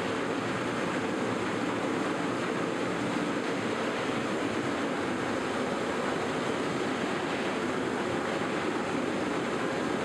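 Steady rushing noise of a ceramics factory floor with its kiln firing, even and unchanging throughout.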